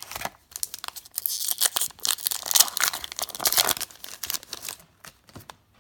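Wrapper of a trading-card pack being torn open and crinkled, a dense crackling that lasts about four seconds and stops shortly before the end.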